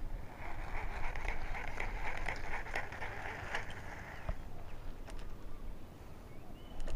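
Shimano SLX baitcasting reel whirring with fine rapid ticking for about four seconds, then stopping, leaving only a few faint ticks. Low wind rumble on the microphone runs underneath.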